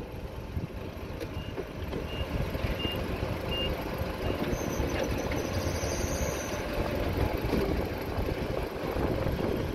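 A forklift's engine running steadily as it sets a crate into a pickup bed. Four short high beeps from a reversing alarm come about a second in, evenly spaced.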